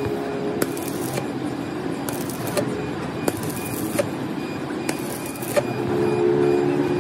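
Workshop machinery running with a steady low hum, with sharp metallic clicks and clinks every second or so.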